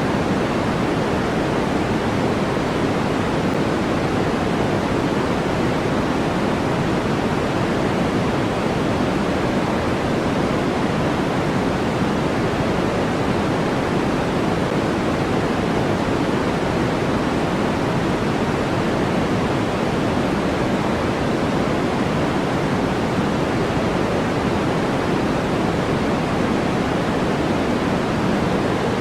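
Generated white noise for sleep, a steady, unchanging rushing hiss. It is fuller in the low and middle range than in the highs.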